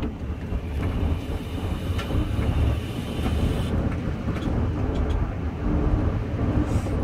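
Vehicle air-conditioning fan blowing steadily inside the cabin, over the low rumble of the idling engine. A hiss runs for about three seconds near the start as the vape is drawn on.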